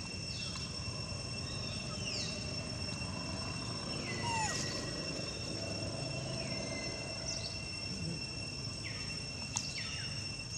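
Outdoor ambience: a steady high-pitched insect drone, with several short sweeping animal calls scattered through it, the loudest about four seconds in, over a low background rumble.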